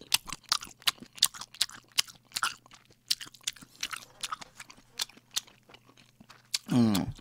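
Close-miked chewing of creamy noodles and seafood: an irregular run of short, wet mouth clicks and smacks. Near the end, a brief hummed voice sound.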